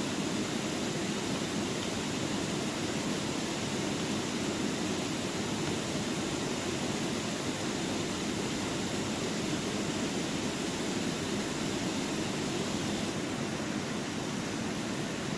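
Steady outdoor rushing noise that holds an even level throughout, with no distinct events.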